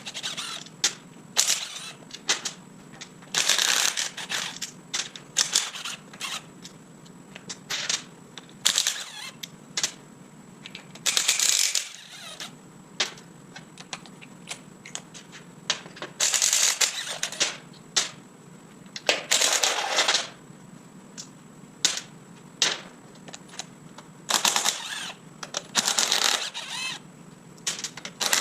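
Metal clinks, knocks and short runs of rapid clicking from hand tools on a Tremec T56 manual transmission being taken apart, coming irregularly over a steady low hum.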